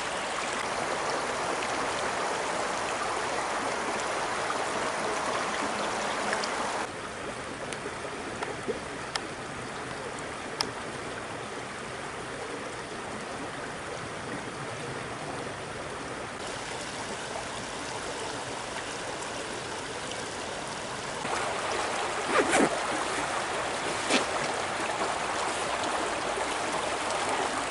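A creek running steadily, its sound dropping about seven seconds in and coming back up a little after twenty seconds, with a couple of short knocks near the end.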